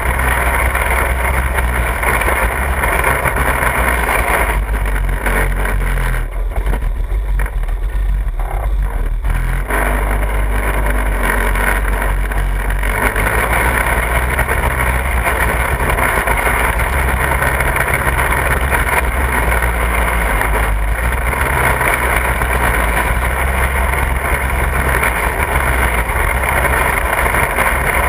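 Off-road buggy's small engine running as the buggy drives along a dirt trail, heard from a camera mounted on the buggy. The sound thins out for a few seconds about five seconds in, then picks up again.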